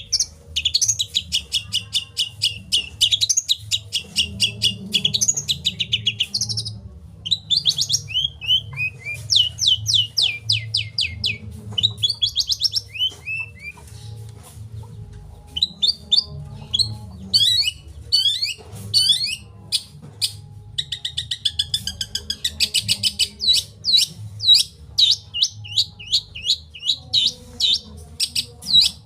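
Songbirds singing in alternation: kapas tembak bulbul, canary, cililin and long-tailed shrike song. The phrases are rapid high trills and chirps, with runs of falling notes, short pauses and a faint low hum underneath.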